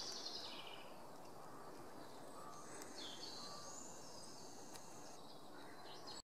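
Woodland birds singing, faint high chirps and trills over a soft steady background hiss; the sound cuts off abruptly just before the end.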